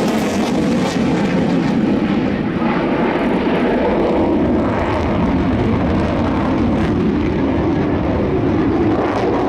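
Mitsubishi F-2 fighter's single F110 turbofan jet engine at high power with the afterburner lit during a display turn: a loud, steady rushing roar that stays constant throughout.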